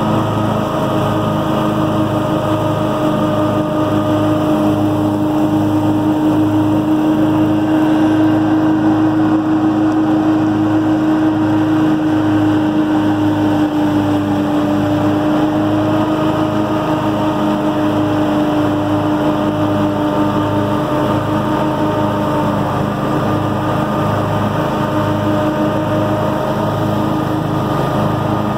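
Simplicity riding mower running steadily while cutting grass, engine and deck giving a steady whine with an even low pulsing underneath. Clippings blow out through the open bagger tube.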